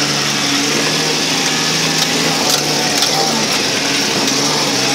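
Off-road vehicle's engine running at steady low revs, heard from inside the cabin while crawling along a dirt trail, with a few faint knocks and rattles from the body.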